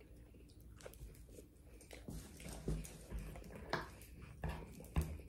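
Close-miked chewing and biting of crispy fried pork chop, with irregular crunches and clicks that start about two seconds in and grow louder toward the end.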